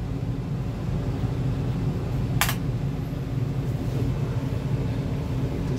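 Steady low machine hum, like a running fan, with one short sharp click about two and a half seconds in.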